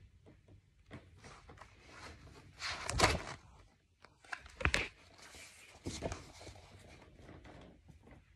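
Rustling and brushing as a large hardcover picture book is handled and turned around close to the microphone, in several short bursts; the loudest comes about three seconds in, with others near five and six seconds.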